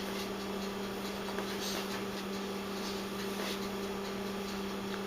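Steady low mechanical hum, one unchanging tone with faint background noise.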